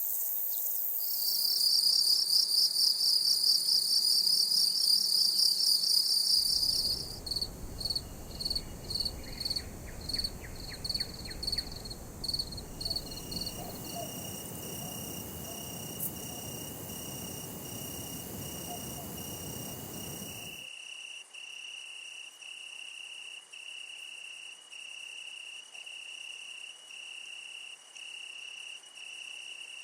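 A run of separate insect recordings, cicadas and crickets. First a loud, high buzzing song for about five seconds, then high pulsed chirps about twice a second over low background noise. After a cut, a steady high trill broken about once a second.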